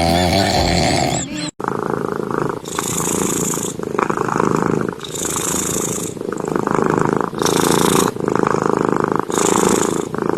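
Domestic cat snoring loudly: a raspy, buzzing breath noise in a steady rhythm of about one breath cycle every two seconds, each with a hissy phase. A short wavering musical sound effect cuts off about a second and a half in, before the snoring starts.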